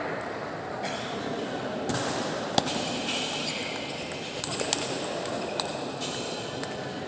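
Sharp, irregular clicks of a ball being struck in a large hall, over a steady murmur of background noise.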